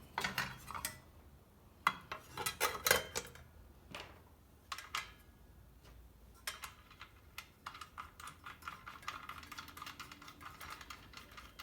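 Metal clinks, knocks and clicks of a new circular saw blade and its arbor bolt and tools being handled and fitted onto the saw, with a quick run of small ticks in the second half.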